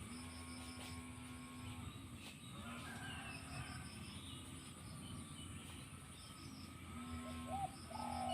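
Spotted dove cooing, with a couple of short curving coo notes near the end, while small birds chirp faintly in the background.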